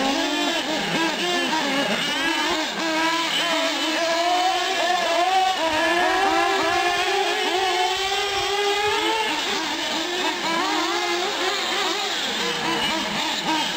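Several small nitro-fuelled R/C car engines revving together as the cars race around a dirt track. Their overlapping high-pitched whines rise and fall with throttle; one climbs steadily in pitch in the middle of the stretch.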